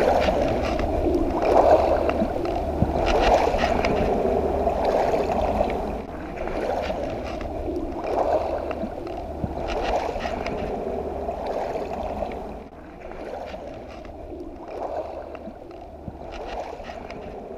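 Small waves lapping on a pebble shore, swelling every second or two, over a steady low wind rumble on the microphone; it grows quieter about two-thirds of the way through.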